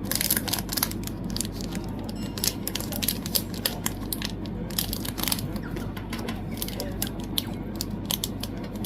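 Packaging being handled: irregular rustling and crinkling with light clicks and taps as a photocard set is unwrapped.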